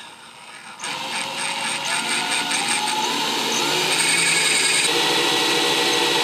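Electric drill spinning a wood bit against tile to start a hole: it is quiet at first, runs at speed from about a second in, and runs louder and steadily from about four seconds in.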